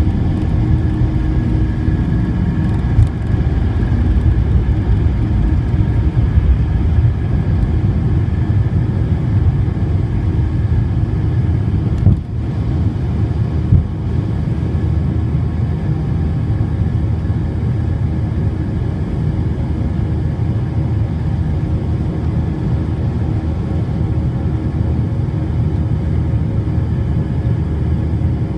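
Cabin noise of a McDonnell Douglas MD-90 at takeoff: the steady roar of its rear-mounted IAE V2500 turbofans at takeoff power over the rumble of the wheels on the runway. The deepest rumble eases about halfway through as the plane lifts off and climbs, with a few brief knocks along the way.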